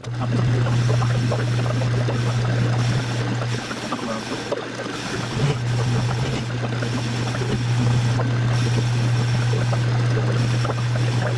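Metal lathe running and turning a metal sleeve: a steady low motor hum under the rough hiss and chatter of the cutting tool taking metal off the spinning part.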